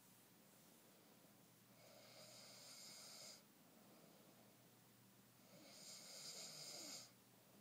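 Faint snoring breaths of a man asleep: two long, hissy breaths, one about two seconds in and one near the end.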